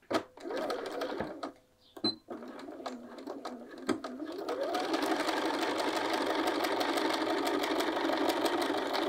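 Bernina sewing machine stitching: a couple of short stop-start runs, then the motor speeds up with a rising whine about four seconds in and runs steadily at speed.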